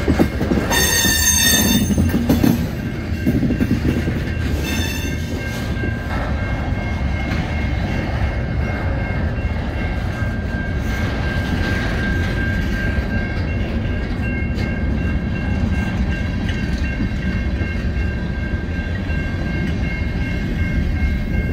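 Canadian National freight train's covered hopper cars rolling past: a steady rumble of wheels on rail, with a high-pitched wheel squeal about a second in and a shorter one near five seconds.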